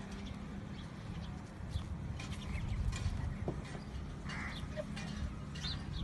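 Outdoor farmyard ambience: scattered short bird chirps over a low, steady rumble.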